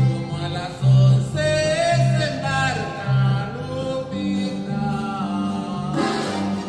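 Norteño-style music played live: an accordion melody over an electric bass line with strong low notes about once a second, and a voice singing.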